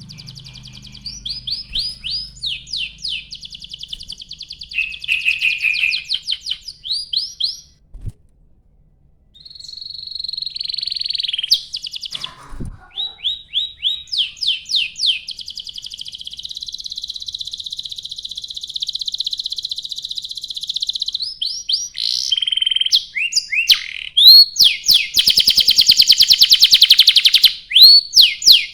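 Domestic canary singing a long song: series of quick down-sweeping notes and trills, with a short break about eight seconds in. Near the end it builds into a loud, very fast buzzing roll.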